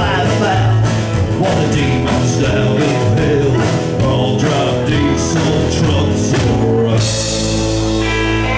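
Live band of acoustic guitar, upright bass, electric guitar and drum kit playing the closing bars of a song, with drum hits under the chords. About seven seconds in the band lands on a long held final chord.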